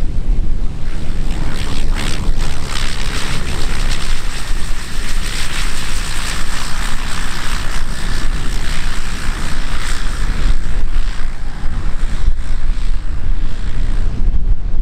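Turboprop engine and propeller of an Air Tractor AT-502B crop-duster running as it rolls along the runway, a broad rushing hiss that swells through the middle and eases near the end. Heavy wind rumble on the microphone underneath.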